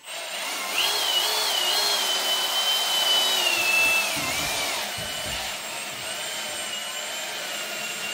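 Cordless drill spinning a carpet scrub brush against a wet cloth seat back. The motor's high whine rises and dips with the trigger over the scrubbing noise, then settles a little lower and quieter about five seconds in.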